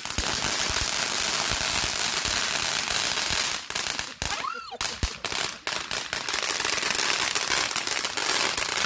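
Ground fountain firework spraying sparks: a loud, steady hiss thick with fine crackling, easing off briefly about halfway through before picking up again.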